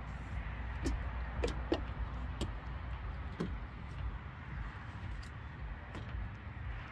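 Steady low rumble of distant traffic, with a handful of light knocks and taps as a small child climbs the step into a van's sliding side door.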